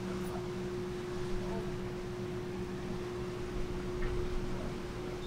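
The Washington State Ferries MV Puyallup under way: a steady machinery hum with one constant tone over a low rumble, and the noise of wind and churning wake water.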